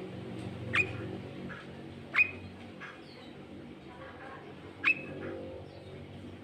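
A songbird calling: three short, sharp notes that sweep down in pitch, about a second in, about two seconds in and near five seconds in, over a steady low hum.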